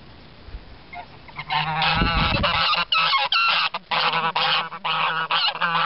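Domestic white geese honking close by: after a quiet start, a loud, rapid run of repeated calls begins about a second and a half in and keeps going.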